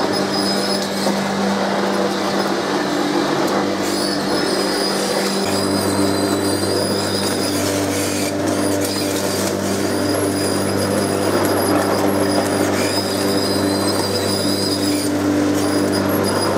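Corded electric lawn mower running steadily as it is pushed over grass, a constant motor whine with a lower hum joining about five seconds in.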